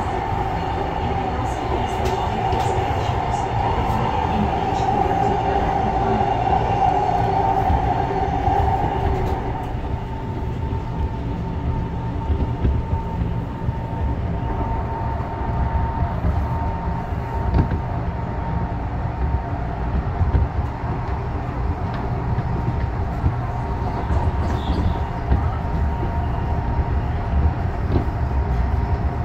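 Interior running noise of an AREX airport-railroad commuter electric train moving at speed: a steady low rumble of wheels on rail. About ten seconds in, a louder rough mid-pitched roar drops away, leaving the rumble and a thin steady tone.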